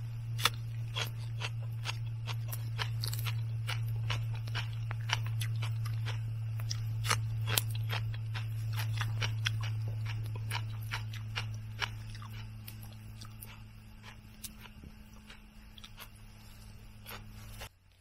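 Close-up crunching and chewing of raw green onion stalks, with many sharp, crisp bites and clicks. A steady low hum runs underneath and cuts off abruptly just before the end.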